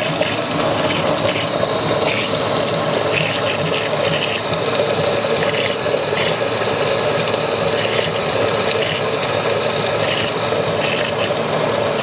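Electric blender running steadily at full power, with pieces of mouse knocking around in the jar as it blends a smoothie.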